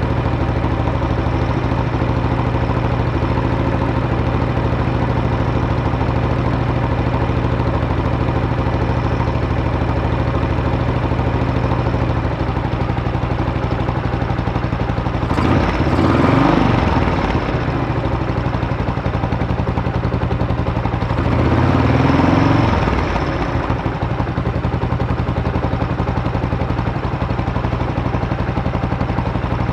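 Buell Blast's single-cylinder engine idling steadily while warming up, with two short throttle blips, one about halfway through and one a few seconds later, where the revs rise and fall back to idle.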